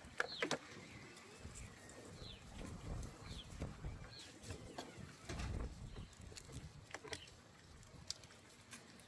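Faint outdoor birdsong of short, falling chirps, with a few light clicks and knocks scattered through and a low rumble underneath.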